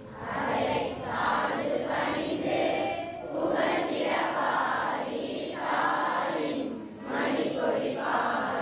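A group of voices chanting together in unison, in short phrases with brief breaks between them.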